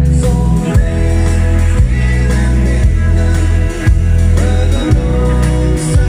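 Swedish dansband playing live: drum kit, keyboard, acoustic and electric guitars over a strong bass, with a sung vocal, heard through the venue's PA.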